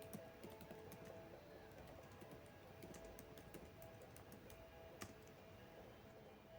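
Faint, irregular clicks and taps over a few faint steady tones, near silence.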